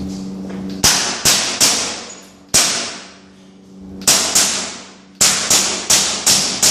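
KWA Kriss Vector gas-blowback airsoft submachine gun firing about a dozen single shots in uneven groups, a few spaced out early on and then a quicker string near the end. Each shot is a sharp crack that rings on in a hard, echoing room.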